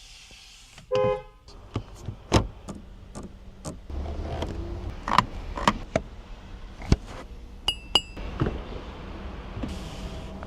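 Rolls-Royce Cullinan being operated: a short pitched tone about a second in, then a series of sharp clicks and knocks from its controls and fittings, with two quick high beeps near the end, over a low steady hum.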